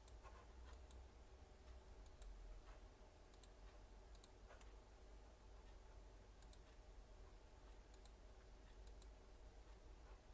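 Faint computer mouse clicks, scattered and several in quick double-click pairs, over a low steady hum.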